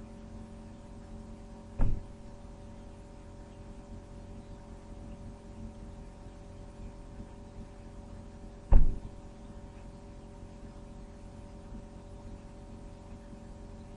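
Steady low electrical hum with two short thumps, one about two seconds in and a louder one about nine seconds in.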